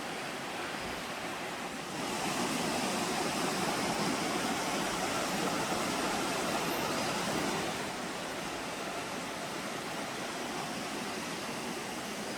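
Creek water rushing: a steady wash of water noise that grows louder about two seconds in and eases back again about six seconds later.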